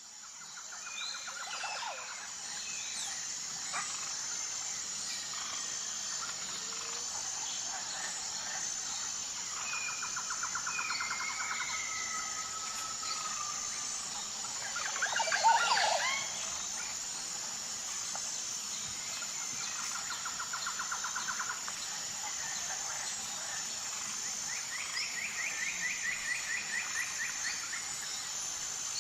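Jungle ambience: a steady, high insect drone with a pulsing tone underneath. Over it, animals call in repeated trills and short whistles, with one louder sweeping call about fifteen seconds in.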